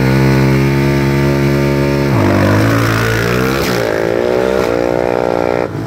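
Sport quad's engine held at steady high revs for about two seconds, then dropping and revving up and down in quick sweeps as it launches and accelerates away, settling to a steady note near the end.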